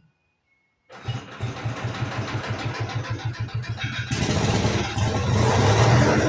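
Engine of a Lincoln engine-driven welder starting up. It turns over with a quick, even chugging from about a second in, then runs up louder about four seconds in.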